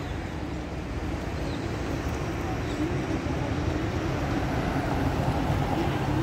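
A police SUV drives up and passes close by, its engine and tyres growing louder over a steady city traffic hum.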